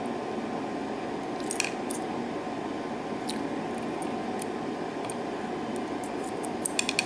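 Light metallic clicks and taps of small lock pins being handled as a mortise lock cylinder is taken apart, over a steady low background hum. Near the end comes a quick run of clicks as the spool top pins and springs fall out of the cylinder housing.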